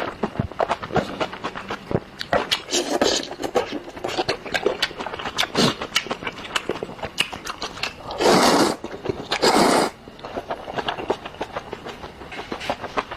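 Close-miked eating of Indomie instant noodles: rapid wet chewing and mouth clicks, with two longer, louder slurps past the middle.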